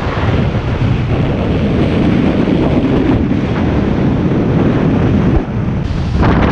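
Strong wind blasting across the microphone in a loud, steady rumble: the gusts ahead of an approaching hurricane.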